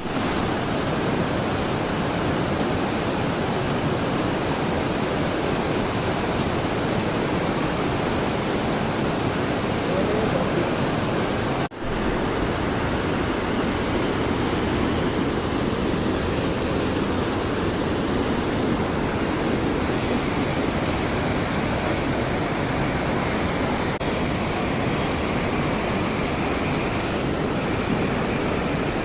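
Steady rush of river water, with a momentary break about twelve seconds in.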